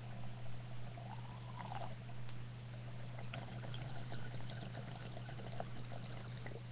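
Water bubbling and gurgling through a Blackleaf Disc Master percolator bong as smoke is drawn through its discs, thickest in the second half, over a steady low electrical hum.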